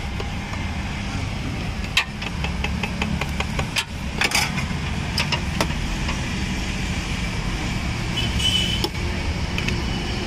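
A vehicle engine idling steadily close by. Sharp metal clinks of a steel ladle against steel pots and the plate, including a quick run of taps about two seconds in.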